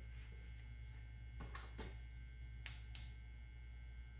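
Steady low electrical hum, with faint handling rustles and two short sharp clicks close together a little under three seconds in.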